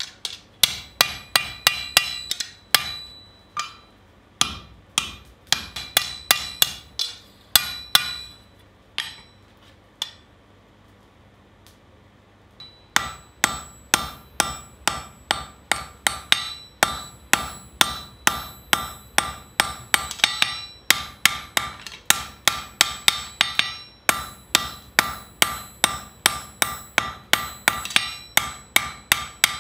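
Blacksmith's hammer striking a red-hot steel scythe blade on the anvil, about three blows a second, each with a bright metallic ring. There is a pause of about three seconds near the middle, then steady hammering resumes.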